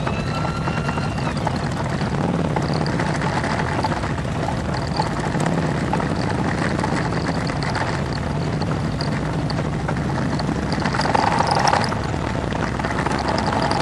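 Many cruiser motorcycles riding slowly together in a column, their engines running in a dense, steady mix. The sound grows briefly louder about eleven seconds in.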